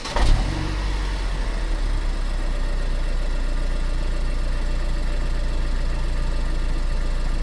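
1993 Mazda RX-7's twin-turbo 13B rotary engine catching with a short burst of revs just after the start, then settling into a steady idle with a low rumble.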